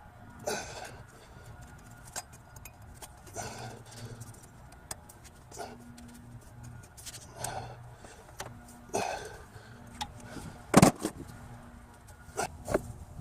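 Scattered metallic clinks and knocks of hand tools working at the engine while the new timing belt is tensioned, with the loudest knock about eleven seconds in.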